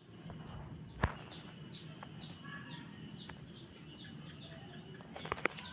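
Small birds chirping over and over in short, high, falling notes, two or three a second. A sharp knock comes about a second in, and a few clicks near the end.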